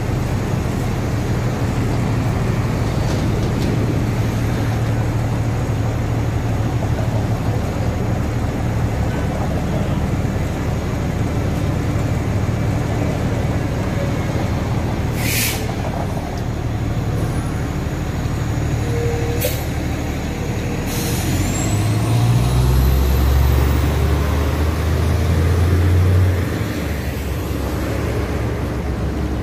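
Steady street traffic rumbles at a busy intersection. About halfway through comes a short hiss of air brakes. Then a fire engine's diesel engine grows loud and deep for a few seconds as the truck pulls through close by.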